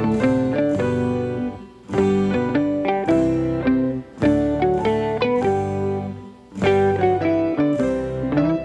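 Background music led by plucked guitar notes, played in short phrases with brief pauses between them.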